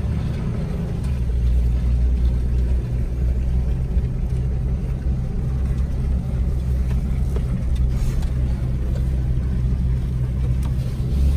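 A motor vehicle's engine and road noise making a steady low drone, unbroken for the whole stretch.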